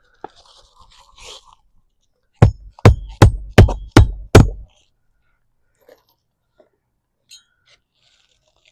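Hammer driving a roofing nail into an asphalt shingle: six quick, evenly spaced strikes over about two seconds, after some faint crackling of the shingle being handled.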